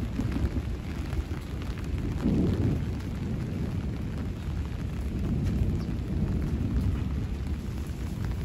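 Wind buffeting the microphone: a low rumbling noise that swells and eases unevenly, strongest about two seconds in.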